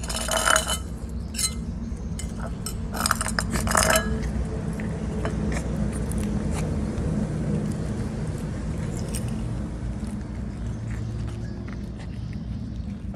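Ceramic plate and the metal spoon lying on it clinking as cats eat from it: a cluster of sharp, briefly ringing clinks near the start and more about three to four seconds in, over a steady low rumble.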